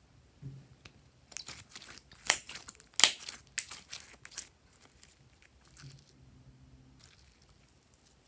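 Glossy glitter slime squeezed and folded in the hands, giving wet, sticky crackles and pops. The two loudest snaps come about two and three seconds in, and it turns faint after about four and a half seconds as the slime is drawn out.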